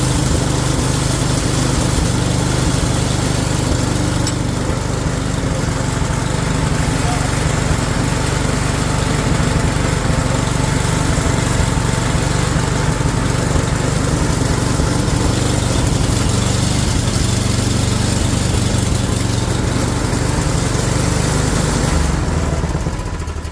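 NOMA 8-horsepower snowblower engine running steadily on a test run after a drive chain repair, then shut off and winding down near the end.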